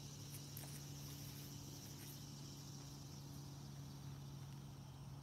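Faint, steady chirring of crickets or other insects, over a low steady hum.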